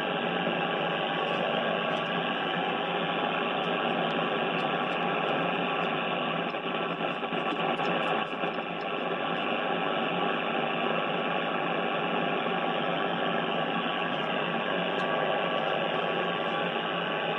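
Shortwave receiver's loudspeaker giving out loud, steady static hiss, with the volume turned up and the receiver in upper sideband. This is the station's noise level, which reconnecting the ground wire is meant to bring down.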